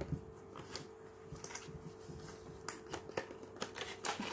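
Light plastic clicks and rustling from handling a GoPro Hero 9 camera in its Media Mod housing, a few sharper ticks scattered through, with the last ones coming close together near the end.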